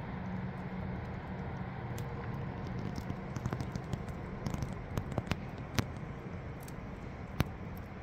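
Wood fire crackling in a steel fire pit: scattered sharp pops start about two seconds in, with two louder snaps near the end, over a steady rushing background.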